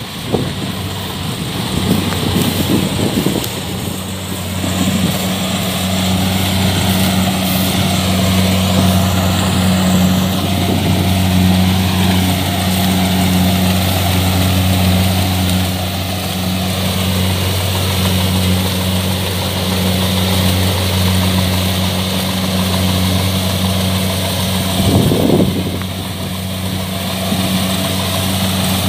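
Kubota DC-70 combine harvester's diesel engine running steadily with a low, even drone, with a brief louder noise near the end.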